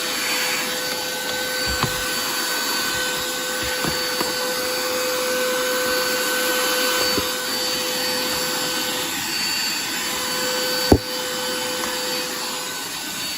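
YANTU V01S handheld car vacuum cleaner running steadily, a constant hiss of suction with a steady motor whine, while it cleans dust. A few light knocks, and one sharp knock about eleven seconds in.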